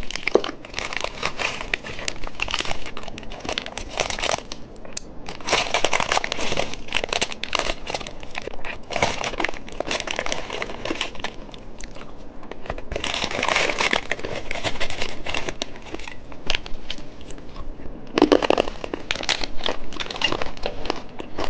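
Plastic candy packaging crinkling and crackling as it is handled and opened, in bursts of a few seconds with short pauses between.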